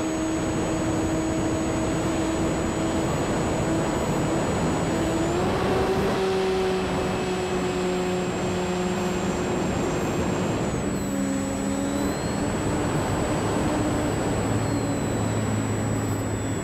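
Electric motor and propeller of an E-flite Sukhoi RC aerobatic plane in flight: a steady whine over a rushing noise, stepping up in pitch about five seconds in and dropping again around eleven seconds as the throttle changes.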